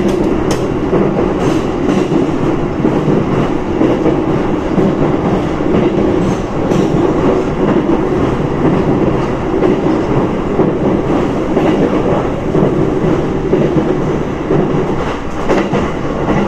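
Steady running noise of a JR Chūō Line commuter train heard from inside the carriage: a dense rumble of wheels on rail, with a few faint rail-joint clicks.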